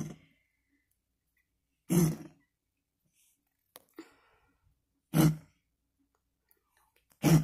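Gray domestic cat giving short hacking coughs, four of them about two to three seconds apart, which the owner takes for an asthma attack.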